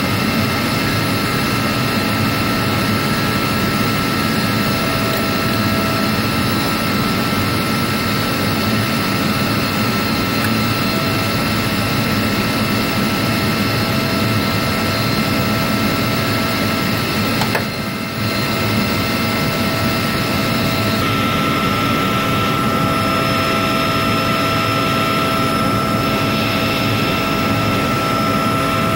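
Floatplane's engine and propeller running steadily at low power on the water: a loud, even drone with a constant high tone, dipping briefly about two-thirds of the way through.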